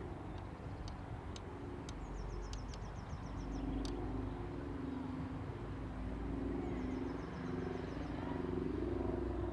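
Low, steady rumble of a running vehicle engine, with a few sharp clicks in the first seconds. A short, high, rapid trill sounds twice, about two seconds in and again about seven seconds in.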